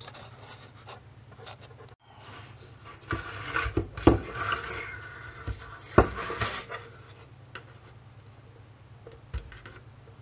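Small screwdriver scraping and prying at the plastic case of a Siemens VDO BSM fuse box, with handling knocks. A busy stretch of scraping comes in the middle, with two sharp knocks about four and six seconds in.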